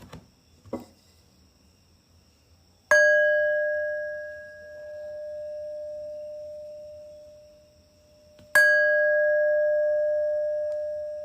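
A singing bowl struck twice, about five and a half seconds apart, each strike ringing on in a long, slowly fading tone with a low and a higher overtone and a slow swell in loudness. Two faint knocks come just before the first strike.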